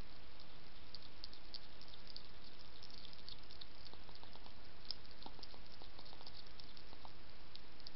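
A hedgehog chewing dry kitten-food biscuits: a fast, irregular run of small crunches and smacking clicks over the steady hiss of a trail camera's microphone.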